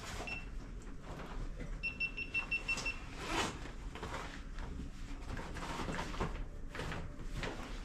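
Scuffing and rustling of people moving and clambering over rock and loose dirt. A short electronic beep sounds near the start, and a quick run of about six beeps follows around two seconds in.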